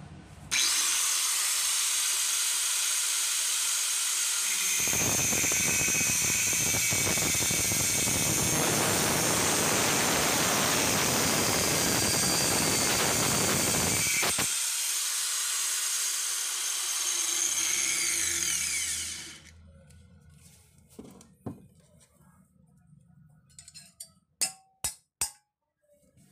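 Makita 9553B angle grinder switched on, running at full speed with a high whine. About five seconds in its abrasive disc bites into a steel rod and grinds harshly for about ten seconds, then it free-runs again. It is switched off a few seconds later and winds down. A few light knocks near the end.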